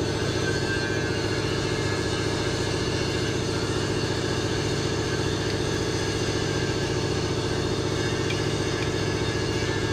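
An engine or motor running steadily at an even pitch.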